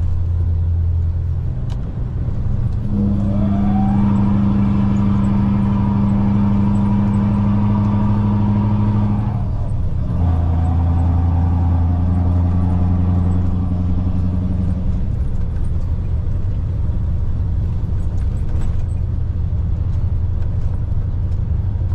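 Scania V8 diesel engine of a loaded log truck pulling steadily uphill in low gear at moderate revs. About three seconds in, a rising whine joins the engine note and holds. It drops out briefly a little before halfway, then returns and fades out about two-thirds of the way through.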